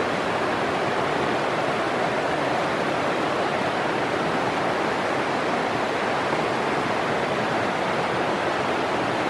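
Fast-flowing river water rushing steadily over rocks and a log jam.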